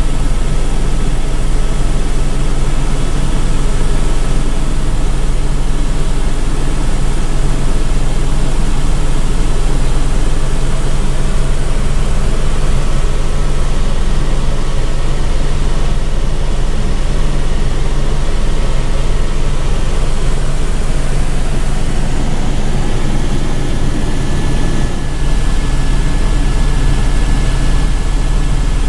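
Eurocopter AS350 B2 Ecureuil helicopter in flight, heard from inside the cockpit: a steady deep drone from the main rotor and turbine with a thin steady whine above it. The whine shifts a little higher past the middle.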